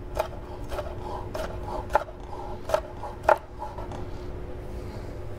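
Chef's knife cross-cutting strips of red bell pepper into dice on a wooden cutting board: several separate knocks of the blade on the board, spaced unevenly, over the first three and a half seconds.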